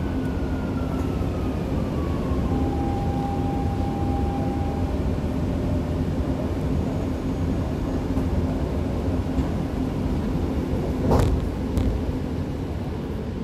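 Alstom Dubai Metro train heard from inside the carriage, slowing into an underground station: a steady running rumble with a motor whine that falls in pitch over the first few seconds. A short loud burst of noise comes about eleven seconds in, as the train comes to a stop.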